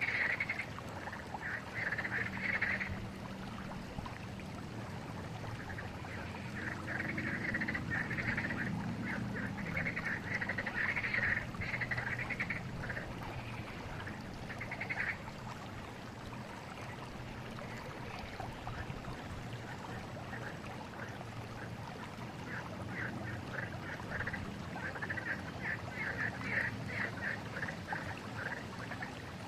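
Steady flowing river water, with recurring bouts of rapid, pulsed animal calls that come and go several times.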